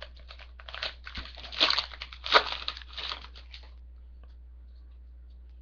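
Foil trading-card pack wrapper crinkling and tearing open in a run of rustles, loudest a couple of times, stopping after about three and a half seconds; a low steady hum remains.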